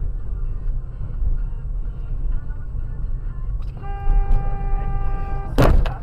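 Low road and engine rumble inside a moving car. About four seconds in, a car horn sounds one steady tone for about a second and a half. A short, loud burst of noise follows right after it stops.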